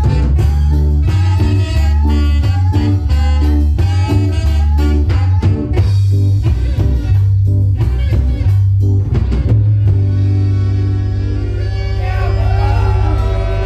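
Live band of saxophones, electric guitar, bass and drum kit playing a song with a steady beat; about ten seconds in the band settles onto a long held chord, and a voice comes in over it near the end.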